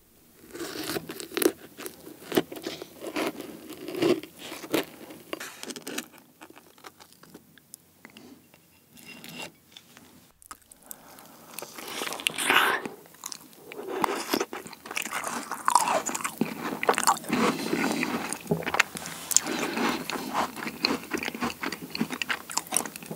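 A strawberry tart with a dark cookie crust being cut with a plastic knife, with soft scraping and crackling. About halfway through come louder crunching bites and chewing of the tart, close to the microphone.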